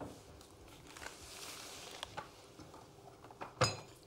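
Faint scraping and small clicks of knives peeling turnips at a table, with one sharper clink a little before the end.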